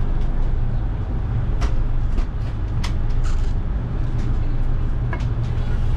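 Steady low engine drone of a Thames passenger boat, heard inside its enclosed passenger cabin, with a few short sharp clicks scattered through it.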